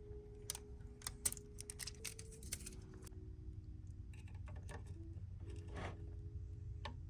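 Soft background music with slow sustained chords that change every second or two, over scattered light clicks and taps.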